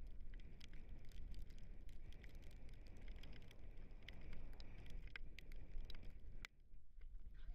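Wind buffeting a handlebar-mounted camera microphone, mixed with a dog scooter's tyres rolling over a wet dirt track, as a steady low rumble with scattered small clicks. The rumble drops out briefly about six and a half seconds in, then returns.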